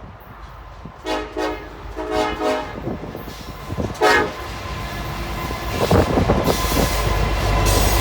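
CN diesel locomotive's horn sounding a series of blasts in the first half: two short ones, a longer one, then another short one. From about five and a half seconds the train's engine and wheel noise build into a steady loud rumble as it draws level.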